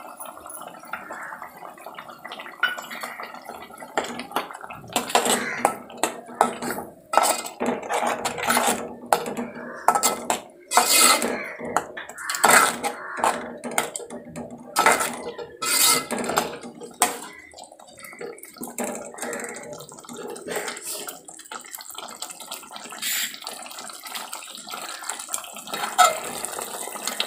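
Steel ladle scraping and clinking against a metal cooking pot as thick masala paste is stirred and fried in oil. Quick runs of strokes fill the middle and thin out toward the end.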